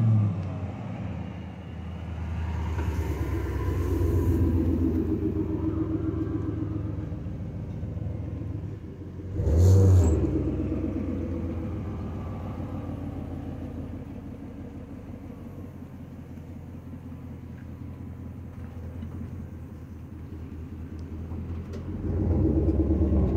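Chevrolet dually pickup's engine running as the truck manoeuvres at low speed, its pitch rising and falling with the throttle. A short, louder rev comes about ten seconds in, and the engine picks up again near the end.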